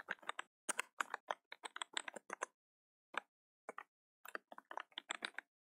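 Faint keystrokes on a computer keyboard, typed in quick irregular runs with a short pause about halfway through.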